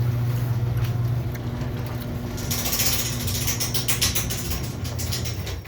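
Garage door opener running the door on a roller just reseated in its track, its motor humming steadily. A dense rapid rattle of the door and track joins about two and a half seconds in, and the motor stops just before the end.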